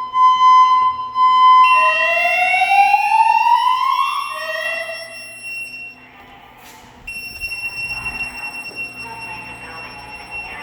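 Emergency voice evacuation speakers of a Silent Knight 6820EVS fire alarm system sounding alert tones. A steady high tone cuts off after a couple of seconds and gives way to a long rising whoop, then a second short rise. About seven seconds in, a thinner steady high-pitched tone starts up.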